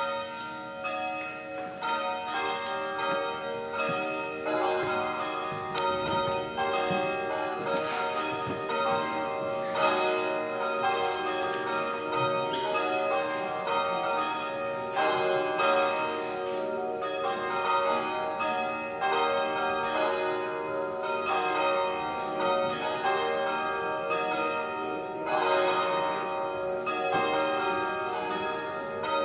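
Church bells ringing, with repeated strikes whose tones ring on and overlap.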